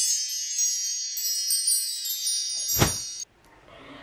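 Shimmering wind-chime tones of a logo intro sound effect, fading slowly, with a short low hit near the end before the chimes cut off suddenly.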